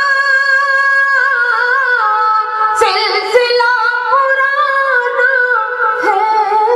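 A woman singing a line of Urdu poetry in a slow, melodic recitation, drawing the words out into long held notes.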